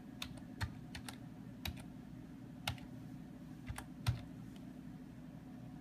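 Computer keyboard keys typed one at a time as a password is entered: about ten uneven keystroke clicks, stopping about four seconds in, over a low steady hum.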